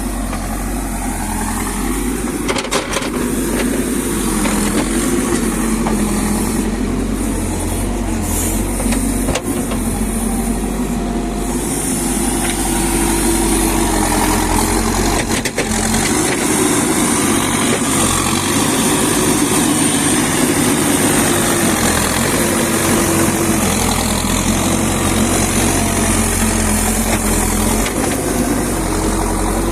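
JCB backhoe loader's diesel engine running under hydraulic load, its pitch rising and falling as the digging arm is worked, with a few brief knocks.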